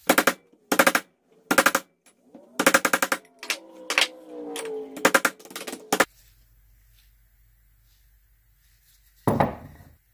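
Rapid hammering on a copper piece clamped in a bench vise: quick flurries of blows, several strikes to each burst, for about six seconds. After a pause, a single knock near the end.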